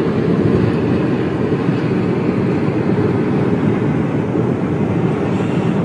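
Tornado winds roaring around a car, heard from inside the cabin: a loud, steady, low rushing noise without a break.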